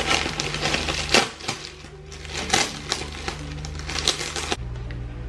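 Packaging crinkling and rustling as it is handled, with many small sharp crackles, over steady background music; the handling noise cuts off suddenly near the end.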